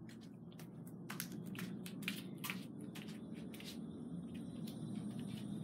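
Footsteps on a hard floor, heard as soft irregular clicks about every half second, mixed with rustling from a hand-held phone. A steady low background hum runs underneath.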